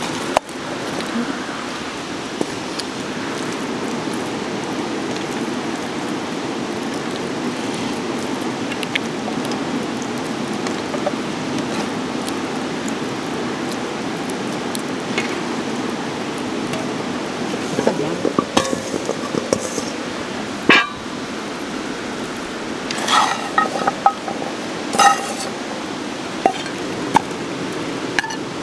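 A steady low rushing noise, with dishes and utensils clinking and knocking now and then in the second half.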